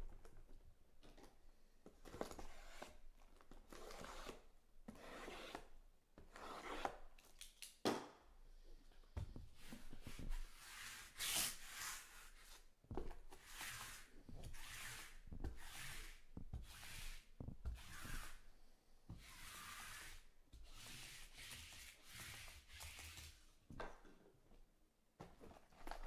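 Cardboard trading-card boxes being handled and slid together, with plastic shrink wrap rubbed and torn: a long run of irregular scraping, swishing strokes and a few light knocks.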